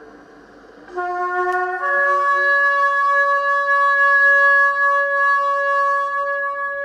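A shofar sounded in one long blast. It starts about a second in on a lower note, breaks up to a higher note under a second later, and holds that note steadily.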